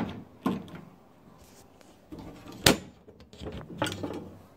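Side access panel of a UV flatbed printer being unlatched and opened: a few clicks and knocks, the loudest a sharp knock a little under three seconds in, then some clattering near the end.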